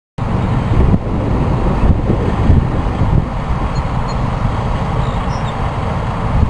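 Wind buffeting the camera microphone: a loud, uneven low rumble that swells and dips.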